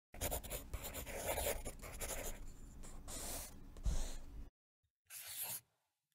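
Sketching on paper: a drawing tool scratching in quick strokes for about four and a half seconds, then a single short stroke about five seconds in.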